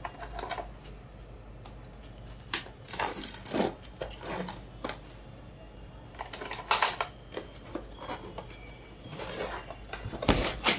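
Cardboard packaging being handled and opened: irregular scrapes, taps and rustles in short clusters as the white box is worked and slid out of its sleeve.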